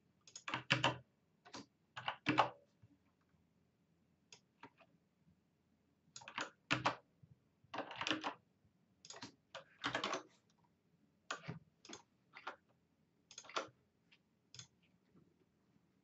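Computer keyboard keys being typed in short, irregular runs of clicks separated by pauses.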